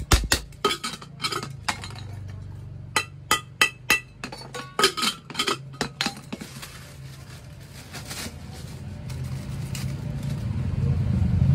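A hammer striking metal on a metal bench, about fifteen sharp blows with a brief metallic ring, some in quick pairs, over the first six seconds. After that a low hum grows steadily louder toward the end.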